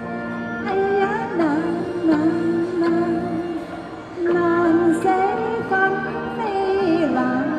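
A woman singing a Cantonese song into a handheld microphone over instrumental accompaniment, with long held notes that waver and slide between pitches.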